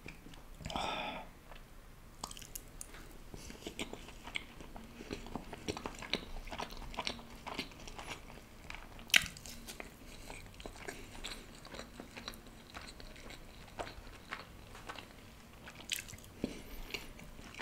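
Close-miked chewing of sauce-dipped fried fish (fish fry): a steady run of small crunches and wet mouth clicks, with one sharper crunch about nine seconds in.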